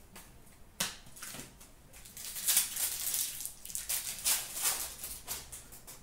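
Hockey trading cards handled by hand: a sharp click just under a second in, then from about two seconds in a run of quick paper and wrapper rustling as the cards are shuffled and flipped through.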